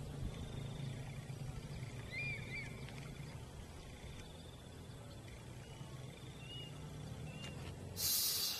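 Outdoor ambience at a reservoir's edge: a steady low rumble with a faint high trill repeating every second or so, and a few short bird chirps about two seconds in. A brief loud hiss comes near the end.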